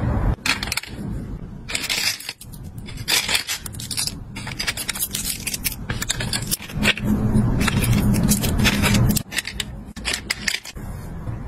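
Small plastic and resin charms clicking, clattering and scraping as fingers rummage through them in clear acrylic storage boxes. A low hum sits under the clicks for about two seconds past the middle.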